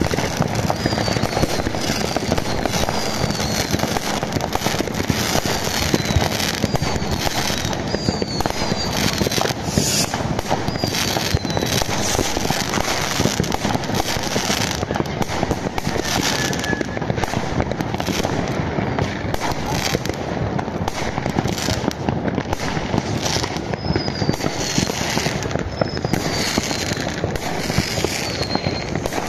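Many fireworks and firecrackers going off at once: a dense, continuous barrage of crackling and banging, with repeated short falling whistles over it.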